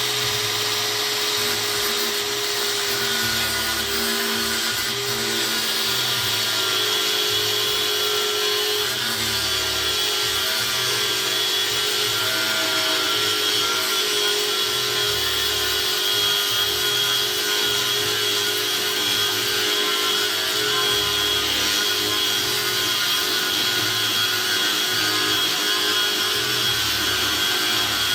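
Angle grinder running steadily with a high-pitched whine and a dense hiss, with no stops or starts.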